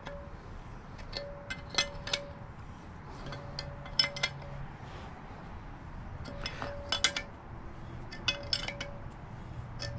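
Combination wrench clicking and clinking against a threaded coolant temperature sensor and the metal water pump housing as the sensor is turned in, in short strokes with scattered sharp metallic clicks.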